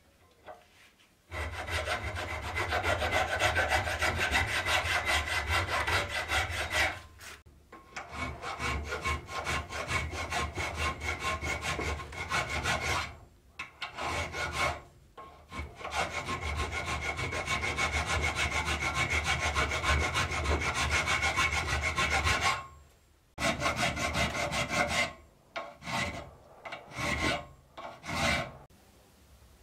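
Steel hand file scraping back and forth across a checkered steel face held in a bench vise. Long runs of quick, even strokes are broken by short pauses, and a few short strokes come near the end.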